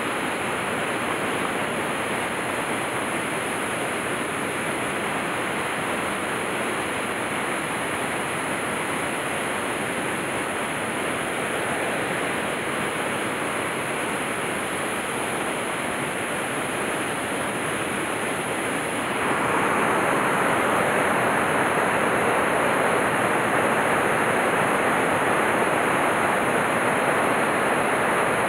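Mountain trout stream's water rushing steadily, turning louder and brighter about two-thirds of the way through.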